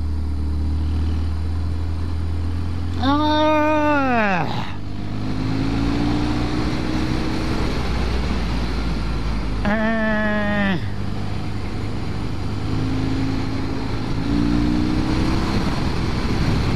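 Motorcycle engine running while riding, with steady wind and road rush. Twice a sharper, higher engine note rises and falls, about three seconds in and again about ten seconds in.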